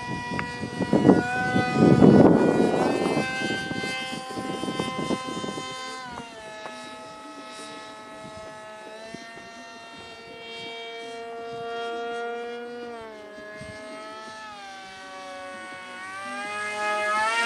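Electric motor of a homemade foam RC model plane whining in flight, its pitch dropping about six seconds in and shifting up and down with the throttle after that, then rising near the end. A rough rumble, like wind on the microphone, sits under the whine for the first six seconds.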